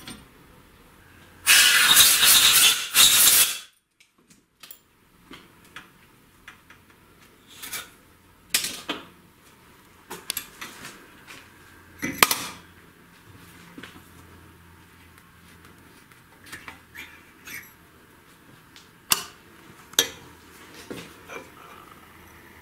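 Cutter on a valve-seat machining rig cutting the chamfer on a VAZ 2107 cylinder-head valve seat: a loud scraping cut lasting about two seconds. Scattered light metallic clinks and taps follow.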